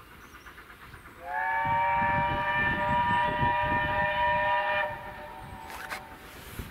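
Steam locomotive whistle sounding one long blast of about three and a half seconds, sliding up to pitch as it opens and then holding a steady chord of several tones before it shuts off, over a low rumble.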